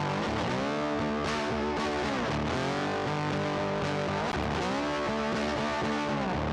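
Background music: distorted electric guitar playing over a steady backing.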